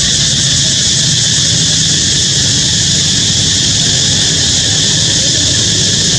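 Loud, steady hissing noise with a low rumble beneath, unchanging throughout.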